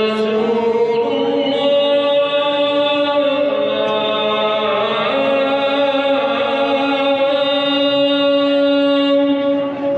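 Islamic call to prayer (adhan): one man's voice chanting long, drawn-out melodic notes, each held for several seconds, with a phrase ending near the end.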